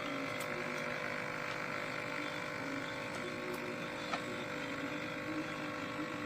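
Capsule coffee machine running with a steady hum, with a few faint clicks.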